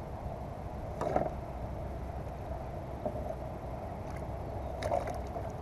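Kayak paddle strokes: the blade dips into the water twice, about a second in and again near the end, over a steady low rumble.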